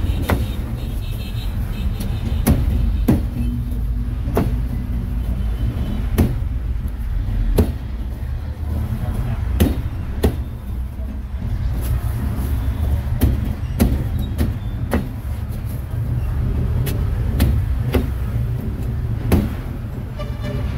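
Roadside traffic rumbling steadily, with sharp knocks at irregular intervals, roughly one every second.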